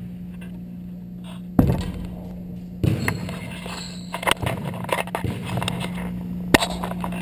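A basketball bouncing on a hardwood gym floor, with two separate bounces, then a run of quicker knocks and clicks, picked up by a camera mounted on the backboard. A steady low hum runs underneath.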